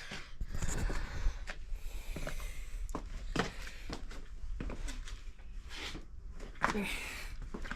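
Low room noise with a steady low rumble and scattered soft clicks and knocks, like handling or footsteps as the display is filmed.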